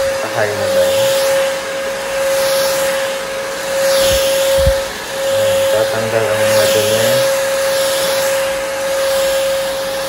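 Cordless stick vacuum cleaner running with a steady motor whine over a rush of air that swells and fades as the floor head is pushed back and forth across a ribbed doormat. Two low thumps come about halfway through.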